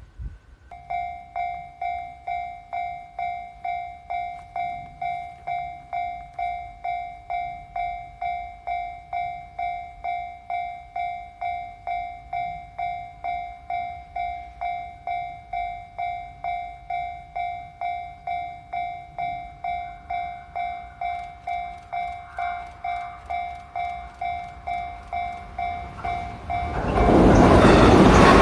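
Japanese level-crossing alarm ringing its repeated electronic 'kan-kan' strikes, a little under two a second, warning of an approaching train. Near the end a train arrives and passes the crossing loudly, drowning out the bell.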